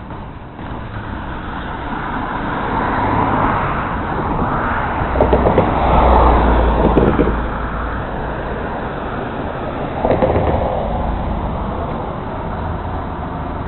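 Road traffic going by on a town street. One vehicle passes close, loudest about five to seven seconds in with a deep rumble, and another passes briefly around ten seconds in.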